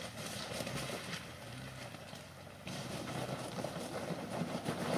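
Jeep Wrangler's engine running at low revs, heard from a distance as it crawls over rocks, with a hiss of background noise and scattered clicks.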